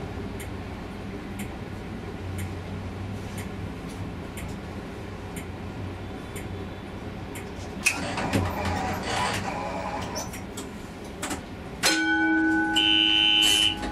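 Comeng A-class tram running, with faint regular clicks and a rush of hissing noise about two-thirds of the way in. Near the end a loud steady electronic tone of several pitches starts suddenly, with a higher note joining for about a second.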